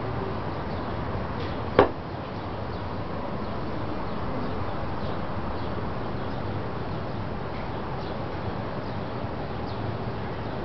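Steady rushing outdoor background noise, with one sharp knock about two seconds in and a few faint high chirps.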